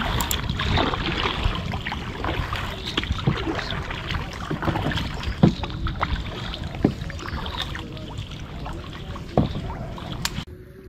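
Kayak paddling on open water: paddle strokes splashing under a steady low rumble, with a few sharp knocks, the loudest about halfway through and again near the end.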